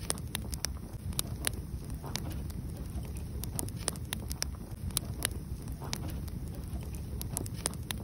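Wood fire burning, the logs crackling and popping irregularly, several sharp snaps a second, over a steady low noise.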